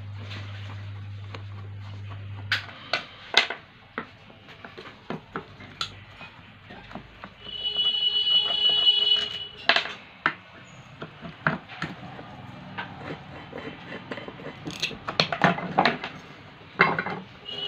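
Screwdriver clicking and scraping on the screws of a ceiling fan's metal motor housing as the screws are undone, with scattered metal knocks. A low hum stops after about two and a half seconds, and about seven and a half seconds in a steady high tone sounds for nearly two seconds.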